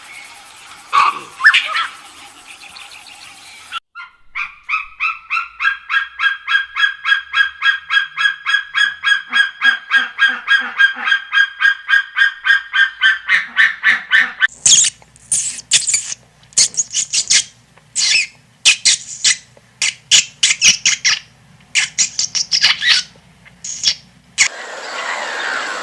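Birds calling: a fast, even run of pitched calls, about four a second for some ten seconds, then a stretch of shriller, irregular calls.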